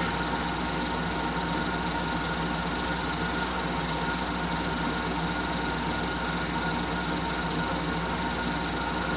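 16mm Telex sound projector running steadily, its motor and film-advance mechanism making an even, fast clatter, with a steady hum under it during a silent stretch of the film's soundtrack.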